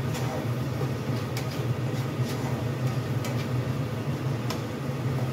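A spatula stirring food frying in a pan, tapping against the pan a few times, over a steady low mechanical hum from the kitchen.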